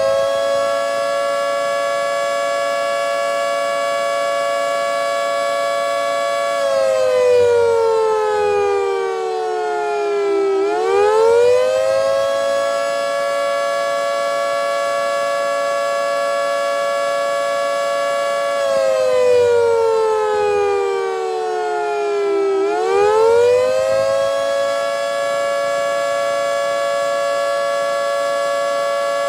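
Federal Signal 3T22A outdoor warning siren sounding a wail on test. Its chord of several tones climbs, holds a steady pitch for about five seconds, then slides down over about four seconds before climbing again, a cycle that goes round about twice and a half.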